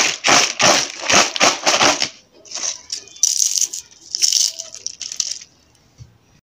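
Crisp fried potato chips rattling in a plastic bowl as it is shaken, about four tosses a second, stopping about two seconds in. Then softer crinkling as a hand scoops through the chips, fading out near the end.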